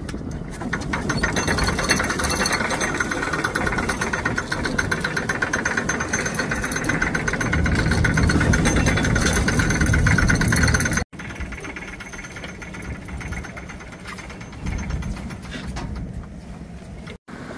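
An engine running steadily with a fast, even beat, loudest for the first ten seconds or so. It drops out abruptly about eleven seconds in and comes back fainter.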